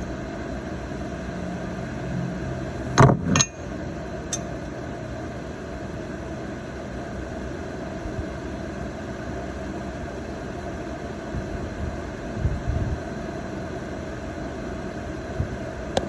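Steady background hum, with two sharp metallic clicks about three seconds in and a lighter one a second later, from hand tools working on a cylinder head's valve keepers; another click comes near the end.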